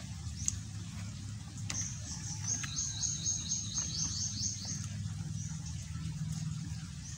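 A bird calling: a rapid run of high, evenly repeated notes, about five a second, starting about two seconds in and lasting some three seconds. Under it runs a steady low hum, with a few faint clicks.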